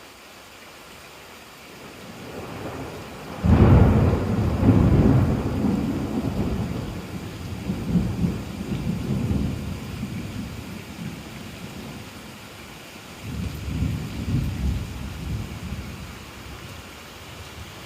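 Thunder over steady rain: a low rumble builds about two seconds in, breaks into a loud clap at about three and a half seconds and rolls on for several seconds as it fades, then a second, weaker roll of thunder comes near the end.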